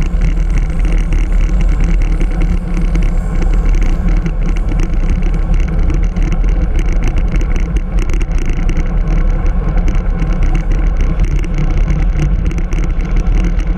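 Heavy wind buffeting on the microphone of a handlebar-mounted GoPro on a moving bicycle, a steady low rumbling roar, with many small rattles and knocks from the bike on the road surface.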